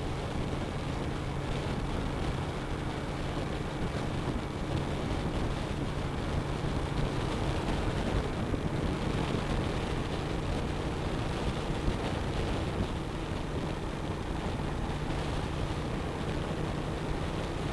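Suzuki SV1000S 90-degree V-twin engine running at a steady highway cruise, with wind rushing over the bike and helmet-mounted camera. The engine note holds one pitch without revving or shifting.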